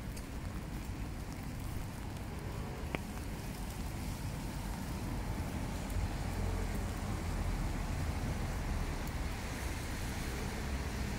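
Steady rain on a wet street: an even hiss with a low rumble underneath, growing a little louder about halfway through, and a single sharp click about three seconds in.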